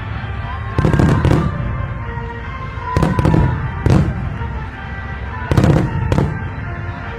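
Aerial fireworks shells bursting in a series of deep booms and sharp bangs, coming in clusters every second or two, over steady background music.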